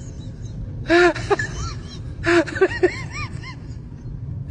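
Cat meowing and yowling in a string of short, arching calls, one group about a second in and several more in quick succession past the middle.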